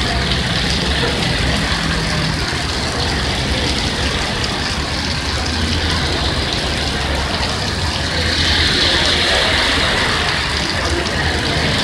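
Police vehicles driving past on a rain-soaked street, their tyres hissing on the wet road under steady rain. The hiss swells about eight seconds in as another vehicle goes by.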